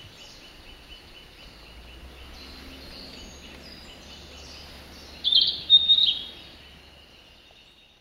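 Male narcissus flycatcher singing: a short, loud phrase of high whistled notes about five seconds in, over a faint fast run of repeated high notes. The sound fades out near the end.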